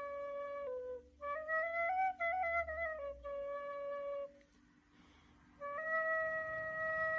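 Solo ney (reed flute) playing a slow melody of long held notes with small bends in pitch. It breaks off for about a second past the middle, then comes back on one long held note.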